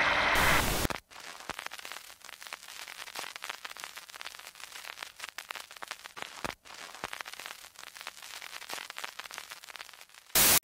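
Loud ghost-box static hiss from a small practice amplifier cuts off abruptly about a second in. Faint, irregular crackling static follows, like old-film crackle. Just before the end, a loud burst of white-noise static starts.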